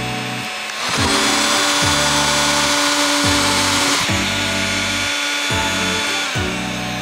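Heat gun blowing hot air in a steady hiss from about a second in until about four seconds in, heating wax into a wooden hairpin's finish. Background music plays throughout.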